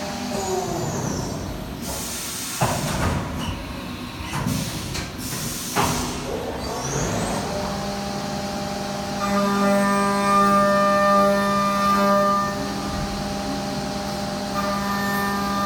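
CNC milling machine going through a tool change: the spindle winds down, two sharp clunks come a few seconds apart, then the spindle spins back up about seven seconds in to a steady whine, louder for a few seconds after that.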